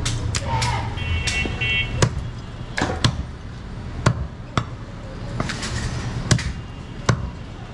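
Heavy butcher's cleaver chopping goat meat on a wooden chopping block: a string of sharp, irregular chops, roughly one a second.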